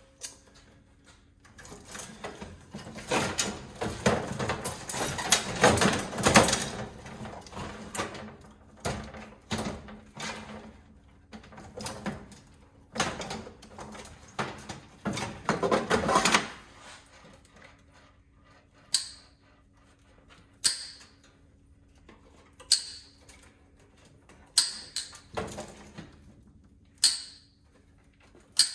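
Clattering and scraping of metal parts and wiring as an instant gas water heater is pulled apart. Then comes a run of sharp single snips, about one every two seconds, from wire snips cutting through wires.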